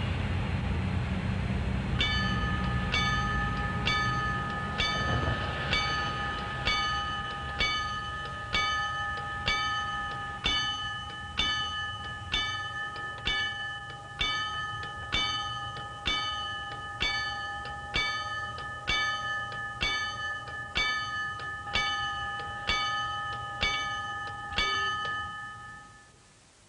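A bell struck about once a second, some twenty-five strikes in all, each ringing on into the next, starting a couple of seconds in after a low rumble and stopping near the end.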